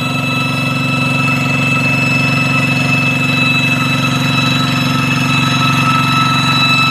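Single-cylinder diesel engine of a Kubota two-wheel hand tractor on cage wheels, chugging steadily while driving, with a steady high-pitched ringing whine over it.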